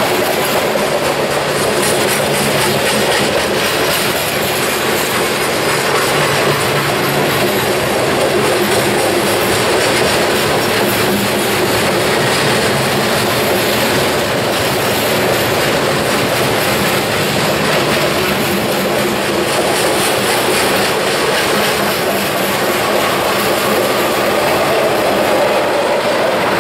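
Freight cars of a mixed freight train rolling past close by: a steady, loud rumble and rattle of steel wheels on rail, with wheels clicking over the rail joints.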